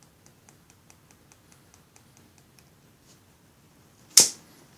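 Faint, quick clicks, about four or five a second, from the buttons of a small infrared LED-strip remote being pressed over and over, dying away after a couple of seconds. About four seconds in, a single sharp, loud knock as a hand handles the LED strip reel.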